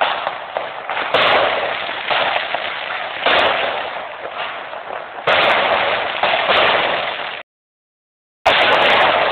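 Aerial fireworks bursting overhead, with a dense crackle throughout. Fresh bursts come in suddenly about one, three and five seconds in, each fading away. The sound cuts out completely for about a second near the end, then resumes.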